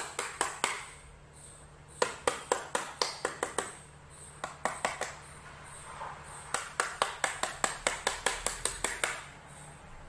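Small hammer tapping lightly on the glued seam of a plastic HP laptop power adapter case to crack it open. The taps come in quick runs of about five a second, with short pauses between runs.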